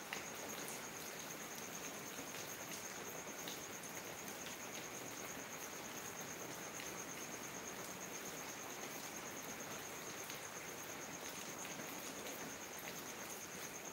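Steady rain falling, with an insect trilling continuously at a high pitch over it and scattered drops ticking.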